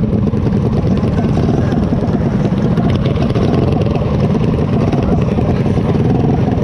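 Mini bike engines idling steadily at close range, several running at once, with no revving.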